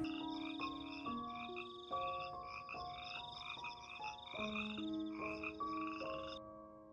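A chorus of frogs croaking: a steady high trill with repeated pulsing calls about three times a second, cutting off suddenly near the end. Soft background music with slow held notes plays underneath.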